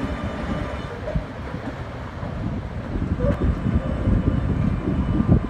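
Articulated electric tram rolling away on its rails: a low, steady rumble of steel wheels on track, with a faint steady whine from its traction equipment. The rumble grows stronger in the second half.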